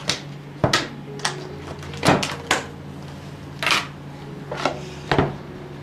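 Plastic ice-cream tub and its lid being handled and emptied into a plastic bowl: a series of about seven sharp plastic clacks and knocks at irregular spacing.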